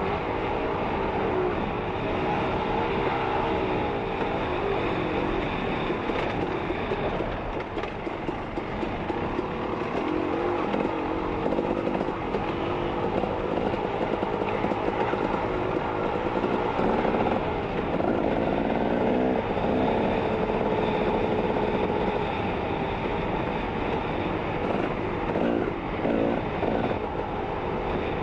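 Dirt bike engine running on a trail ride, its pitch rising and falling again and again as the throttle is opened and closed, over a steady rushing noise.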